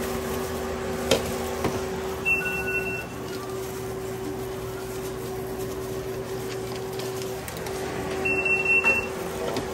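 Two short, high electronic beeps about six seconds apart, over a steady low machine hum, with a few light clicks of handling.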